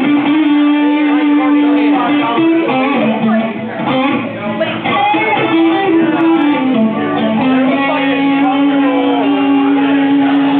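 Recorded music with strummed guitar and a lead melody of long held notes that slide from one pitch to the next, played loud.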